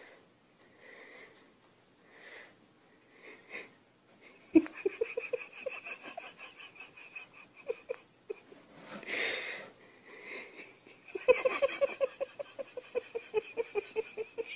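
A person laughing hard and wheezily: two long runs of rapid pulsing laughs, the first about four seconds in and the second about eleven seconds in, with a gasping in-breath between them. Soft breathy snickers come before the first run.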